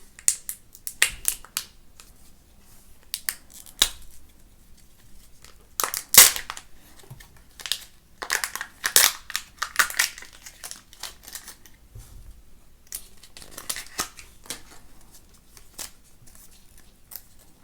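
Kinder Joy egg's foil wrapper and small plastic wrappers being torn open and crinkled by hand, in irregular bursts of rustling and crackling.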